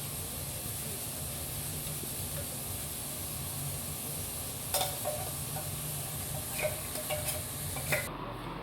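Microwave oven running with a steady hum while it cooks, then cutting off suddenly near the end as its three-minute cycle finishes.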